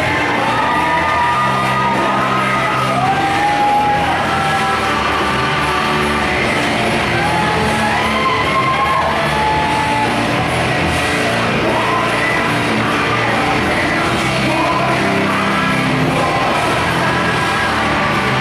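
Loud music with a singing voice and a steady bass line.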